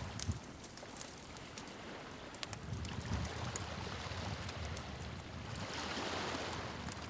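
Wood fire crackling: many sharp pops and snaps over a low rumble, with a swell of hissing flame about six seconds in.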